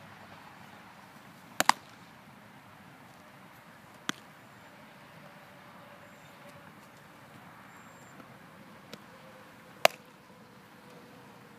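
A baseball smacking into a leather fielding glove on catches during long toss: sharp single pops, the loudest a little under two seconds in and about ten seconds in, with fainter pops between.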